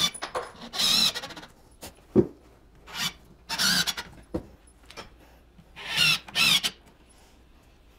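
Screws being driven through a solid wood half newel post into the wall framing, in several short bursts, with a couple of sharp knocks between them.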